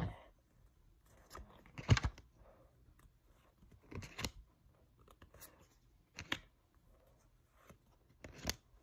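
Trading cards being handled and flipped through: short rustles and snaps of card stock, about four clear ones spaced roughly two seconds apart, with fainter shuffling between.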